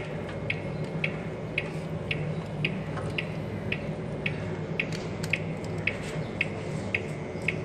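Even, regular ticking, about two ticks a second, over a steady low hum.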